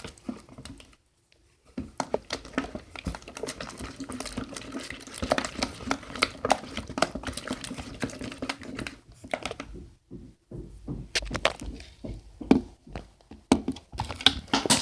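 Thick, gloopy borax slime being stirred in a bowl: irregular wet squelches and clicks, stopping and starting twice, with a faint steady hum through the middle.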